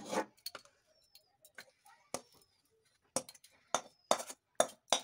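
Metal spatula scraping and knocking against a steel kadai while cooked semolina dough is tipped out onto a steel plate: irregular sharp clinks and taps with short scrapes between.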